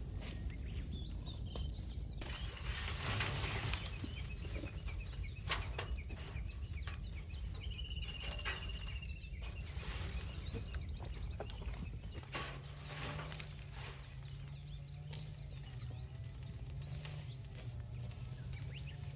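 Small birds chirping, with one short trill about eight seconds in, over scattered sharp crackles and snaps. A low steady hum comes in about two-thirds of the way through.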